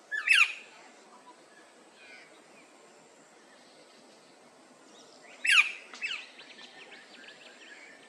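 Male Australasian figbird calling: two loud, quick whistled calls, one at the start and one about five and a half seconds in, the second trailing into a short run of softer chattering notes.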